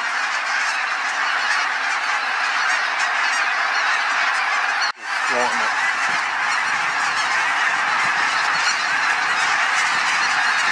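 A huge flock of lesser snow geese calling overhead all at once: a dense, unbroken din of many overlapping high calls. The sound breaks off for an instant about five seconds in.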